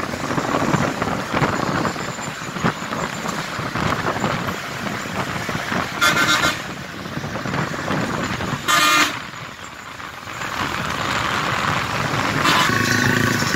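Road and wind noise from riding along a highway among traffic, with two short vehicle horn blasts about six and nine seconds in. A longer steady horn-like tone starts near the end.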